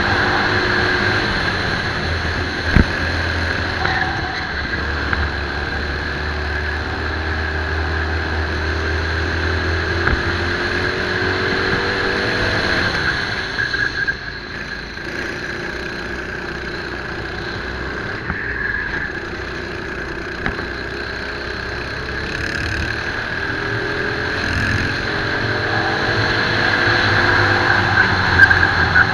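Racing kart engine heard from on board at race speed: the revs climb steadily along a straight, fall away about halfway through as the kart slows for a corner, then climb again in the last third.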